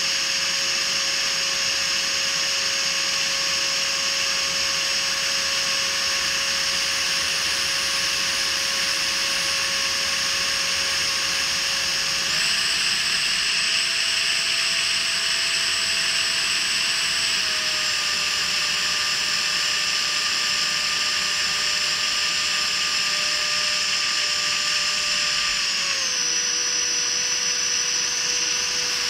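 Freewing 70 mm electric ducted fan with an inrunner motor, heard from a camera on the RC jet's fuselage: a steady high-pitched whine over a rushing hiss. The pitch steps up about twelve seconds in, then eases down in two steps later on.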